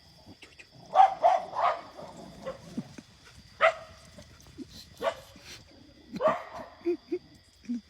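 A dog barking: three quick barks about a second in, then single barks a second or so apart.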